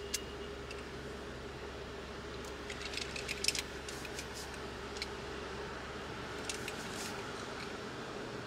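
A perfume spray bottle spritzed several times in quick succession about three seconds in, with a few single spritzes later, over a steady low hum inside a car.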